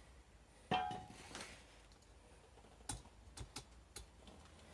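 A steel car stand being handled and set in place: a metallic clink with a brief ring less than a second in, then a few light clicks and taps.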